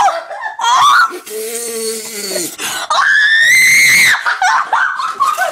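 Human reaction to a mouthful of chilli powder: a low drawn-out groan, then a loud high-pitched scream about three seconds in, held for about a second, with choppy laughter near the end.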